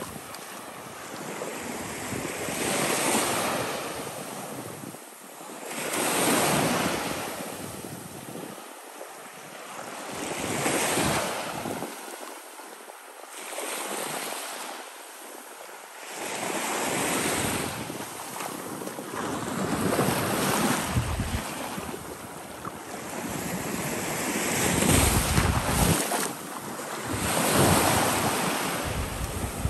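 Small Gulf of Mexico waves washing up and receding on a sandy shore, the surf swelling and fading every three to four seconds. Wind buffets the microphone with low rumbles, strongest near the end.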